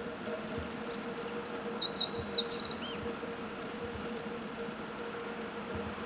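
Meadow bunting singing: a loud, quick phrase of rapid high notes about two seconds in, lasting about a second, with a fainter song phrase near the end.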